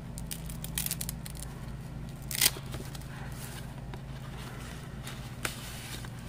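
Paper envelope and cardstock being handled: rustling and crinkling as the envelope's flap is opened and the cards inside are pulled out, with a sharp crackle about two and a half seconds in and a smaller one near the end. A steady low hum runs underneath.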